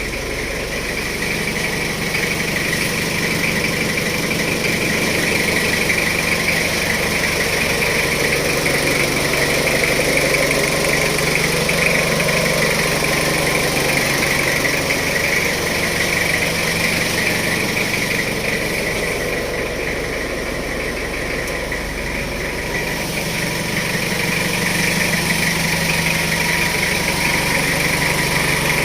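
Jeep Wrangler engine idling steadily, with a steady high-pitched whirr over the low engine note.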